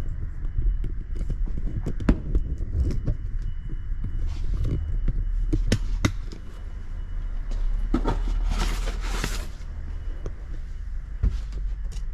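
Workshop handling noise: scattered clicks and knocks over a steady low hum, with a short rustling hiss about two thirds of the way through.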